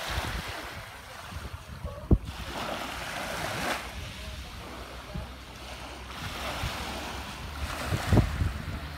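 Small waves washing and lapping on a sandy shore of a calm sea, swelling and fading in several surges. Wind buffets the microphone, with sharp low thumps about two seconds in and again near the end.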